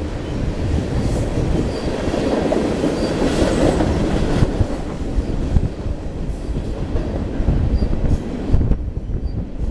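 Freight train of tank cars and open gondola cars rolling past: a steady rumble of steel wheels on the rails.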